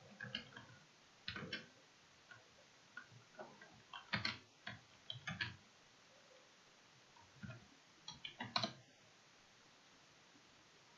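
Computer keyboard being typed on: short runs of irregular key clicks with pauses between them.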